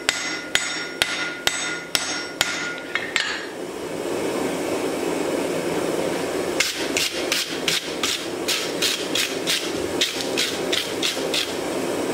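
Hand hammer striking a red-hot axe head on an anvil, about two blows a second, with the anvil ringing after each blow. After a few seconds of steady rushing noise comes a quicker run of blows, about three a second, that don't ring.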